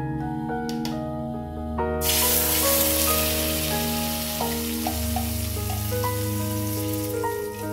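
Ground chili-and-shallot spice paste sizzling in hot oil in a frying pan, a loud hiss that starts suddenly about two seconds in and keeps going. Background music with steady notes plays throughout.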